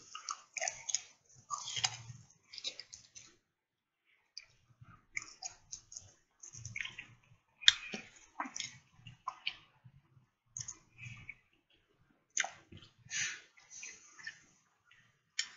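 Mouth sounds of a man eating a beef rib close to the microphone: irregular wet chewing, lip smacks and soft clicks.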